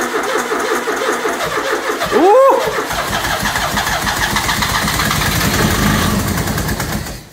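Freshly rebuilt 2-litre turbo engine in a Maestro van being cranked on the starter at its first start. It catches about three seconds in and runs for a few seconds before cutting off abruptly near the end.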